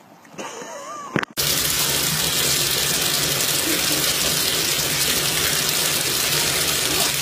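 Bath tap running into a tub, a steady loud rush of water that starts abruptly about a second in.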